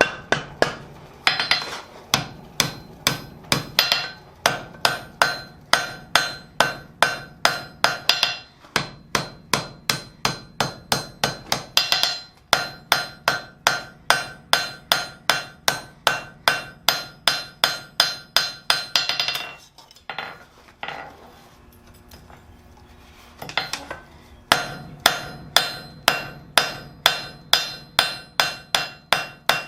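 Hand hammer striking hot steel on an anvil in a steady run of blows, about two to three a second, each with a bright metallic ring: forge-welding and dressing a fluxed scarf joint on a tong clip. The blows stop for about four seconds some twenty seconds in, then resume.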